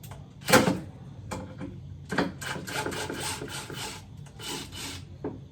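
A sharp knock about half a second in, then rough scraping and rubbing for about three seconds, from parts being worked by hand.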